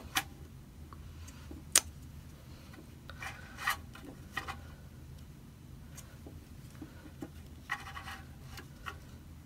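Foam darts being pushed one at a time into a plastic box magazine: short rubbing scrapes of foam against the magazine's feed lips, with a couple of sharp plastic clicks in the first two seconds.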